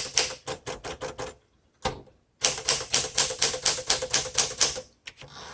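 1961 Smith Corona Sterling manual typewriter being typed on fast, its typebars striking the platen in quick runs of keystrokes, with a short break about a second and a half in.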